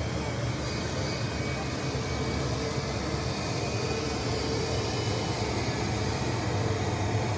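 Twin jet engines of an Embraer regional airliner running at taxi power: a steady rushing hum with a low drone as the jet taxis past.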